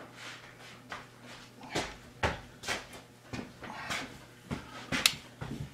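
Work at a small metal lathe turning a brass crown wheel blank: a low steady hum under about ten short, irregular knocks and scrapes.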